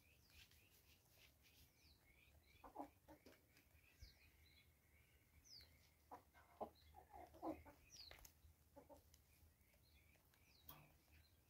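Faint, soft chicken clucks in short clusters, about three seconds in and again in the middle, with thin high chirps of small birds in the background.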